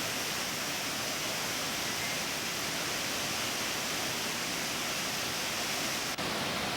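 Steady rushing of the Agua Azul waterfall's cascades, water tumbling down the stepped falls, with a very brief break near the end.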